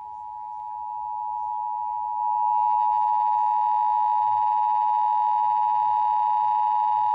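Emergency Alert System two-tone attention signal: two steady tones (853 and 960 Hz) sounding together as one harsh dual tone. It rises in level over the first two and a half seconds, then holds steady, announcing the start of an EAS Required Monthly Test.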